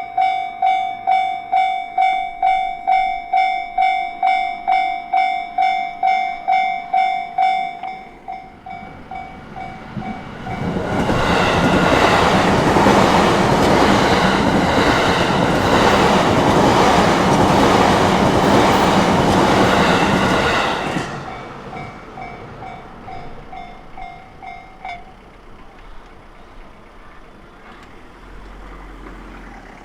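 Japanese level-crossing warning bell ringing in a steady pulse about twice a second. A JR Takasaki Line train then passes over the crossing for about ten seconds, a loud rush of wheel and rail noise that drowns the bell. The bell rings on faintly after the train has gone, stops a few seconds before the end, and starts again at the very end.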